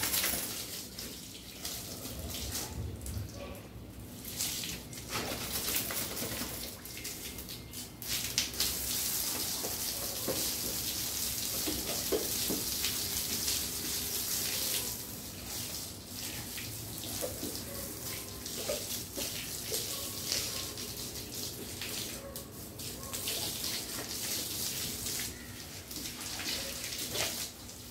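Water running from a garden hose and splashing onto a wet dog's coat and a stone-tiled floor, a steady hiss that is loudest in the middle stretch.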